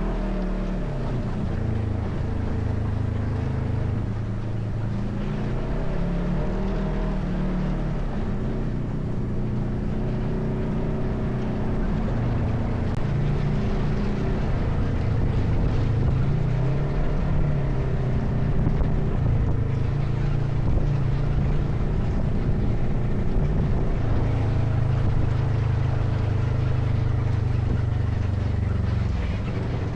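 ATV engine running under way on a rough dirt road, its pitch rising and falling as the throttle changes.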